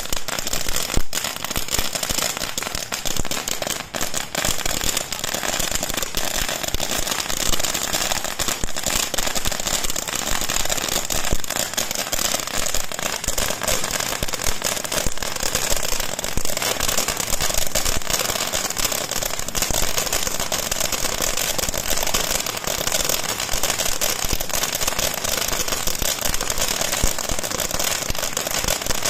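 Several ground fountain fireworks spraying sparks together, a dense, steady crackling hiss.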